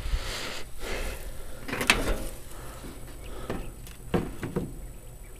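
A few light clicks and knocks of hands handling a riding mower's bodywork, the clearest about two seconds in, over a faint rustle; the engine is not running.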